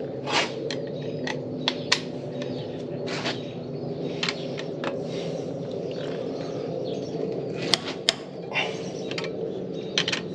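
Torque wrench tightening the cylinder head bolts of a Ford 460 V8 to 140 foot-pounds: scattered sharp clicks and ratcheting over a steady hum.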